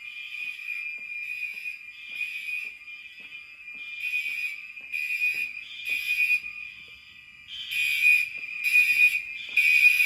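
Fire alarm horns sounding during a system test: loud horn pulses in the temporal code-3 pattern (three blasts, a pause, three more) over a steady horn tone that does not stop, as several devices sound out of step with each other.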